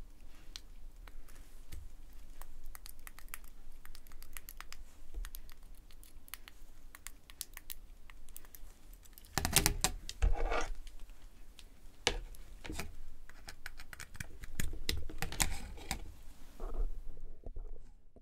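Handling noise around a pocket operator synth: light clicks and taps of fingers on its small buttons and on the wooden table. Louder rustling and scraping comes about ten seconds in and again around fifteen seconds.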